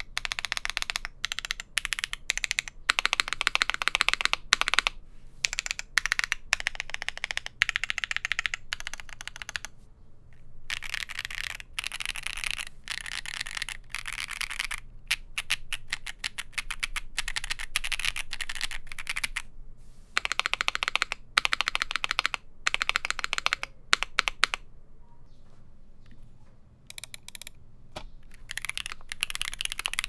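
Mechanical keyboard fitted with factory-lubed Akko V3 Pro switches being typed on, the keystrokes clacking in quick runs after a few separate presses at the start. Typing breaks off briefly near the end, then resumes on an aluminum-plate ai03 Vega with Akko V3 Cream Black Pro linear switches.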